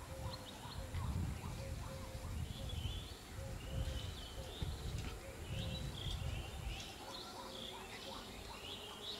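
Birds chirping and calling over a low rumble. A faint short tone repeats about every half second and stops about two-thirds of the way through.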